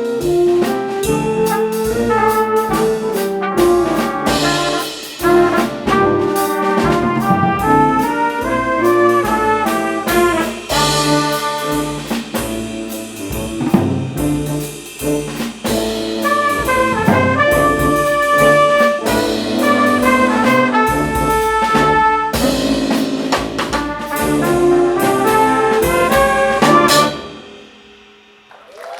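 A school jazz big band playing, with trumpets and trombones over a drum kit. The band hits a final chord and cuts off together about 27 seconds in, and the sound rings away.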